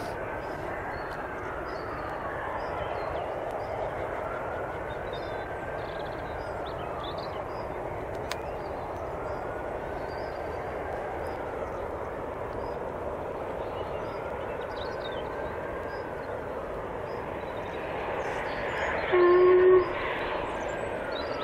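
Distant steam locomotive working a passenger train, a steady noise under faint bird chirps; about nineteen seconds in the locomotive gives one short, loud whistle blast.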